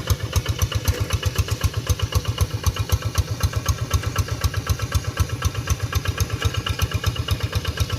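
Rice-paddy tractor engine running steadily with an even chugging of about eight beats a second.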